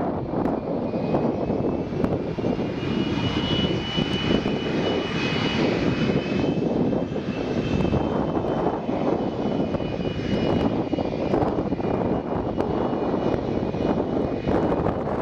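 Boeing 757's Rolls-Royce RB211 turbofan engines at high power as the jet departs: a steady, heavy roar with a thin high whine on top that fades away near the end.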